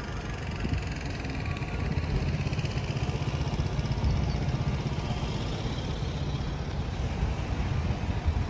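City street traffic: car engines running and passing, a steady low rumble that grows louder about two seconds in.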